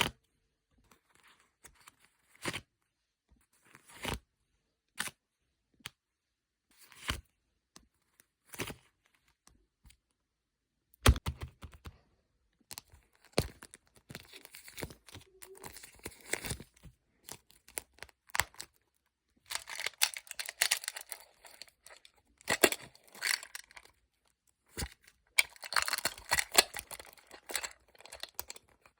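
Plastic packaging being handled and tape torn while photocards are packed by hand: scattered short rustles and taps at first, then longer bursts of crinkling and tearing from about a third of the way in.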